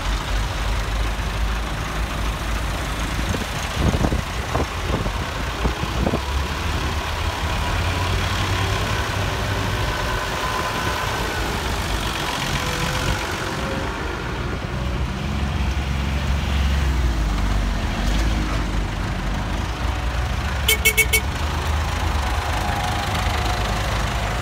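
Tractor diesel engines running, a Massey Ferguson 398 moving off close by; a brief rapid beeping near the end.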